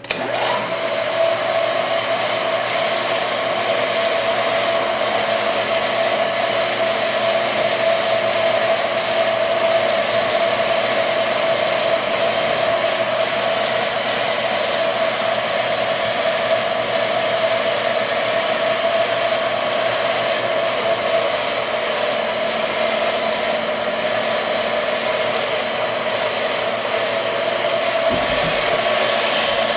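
Sharp CNC knee mill running a program under its ProtoTrak control: the spindle and drives give a steady whine over a loud, even hiss, starting abruptly and holding unchanged.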